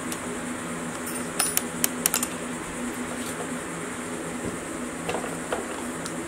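Metal tool clinks from a spanner working the cylinder-head nuts of a classic Mini engine: a quick run of sharp clicks between about one and a half and two seconds in, and two fainter ones near five seconds, over a steady low hum.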